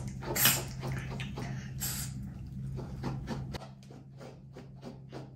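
Slicker brush pulled through a Pomeranian's belly fur in quick repeated swishing strokes, about four a second, with two louder strokes in the first two seconds.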